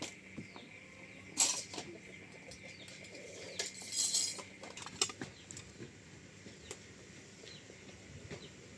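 Poultry flapping their wings in short noisy bursts, the loudest about a second and a half in and again around four seconds, with a few clicks and faint short chirps between.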